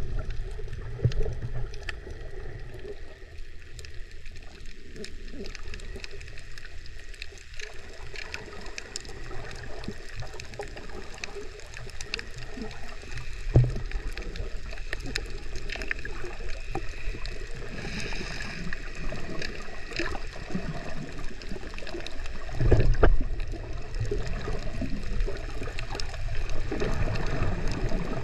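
Muffled underwater water noise: a low steady rumble with gurgling and sloshing, as heard by a camera held below the surface. Two louder bumps stand out, one near the middle and one toward the end.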